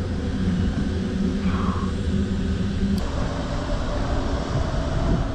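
A steady engine drone over a low rumble. Its hum changes tone about three seconds in, at a faint click.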